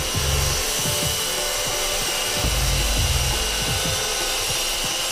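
Bosch GKS 190 handheld circular saw running and cutting through a wooden board, a steady high whine over the rasp of the blade in the wood. A bass beat of background music runs underneath.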